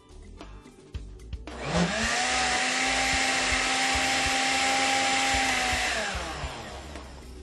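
Blender motor switched on about a second and a half in, with a rising whine as it spins up. It runs steadily for about four seconds, blending a smoothie, then winds down near the end.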